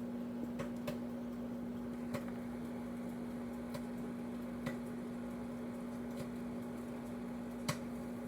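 Microwave oven running with a steady hum while popcorn kernels pop now and then: about six single, scattered pops, the loudest near the end, typical of the early stage of popping.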